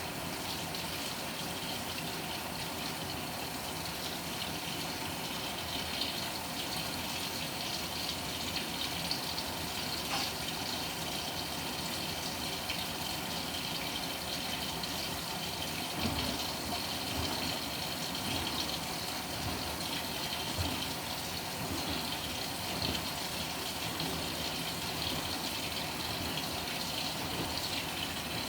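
Water running and splashing inside the tub of a Panasonic NA-FA100H9 top-loading washing machine during its cycle, a steady rush with some low thuds in the second half.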